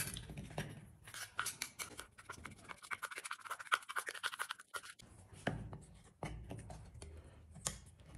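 A flat metal spatula scraping round a small stainless-steel bowl, stirring sawdust into wood glue in quick scratchy strokes for about four seconds. After a short break come a few slower scrapes and sharp ticks.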